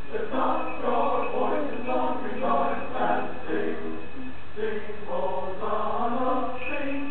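A voice singing a melody in held, changing notes without clear words, with a brief pause about halfway through.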